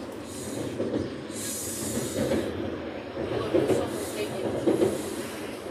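Electric commuter train running on the rails, heard from inside the carriage: a steady rumble of wheels and running gear, with a brief hiss about a second and a half in.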